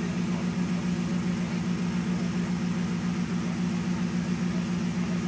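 LS1 V8 engine of a Range Rover running steadily at low revs, with an even low pulsing beat.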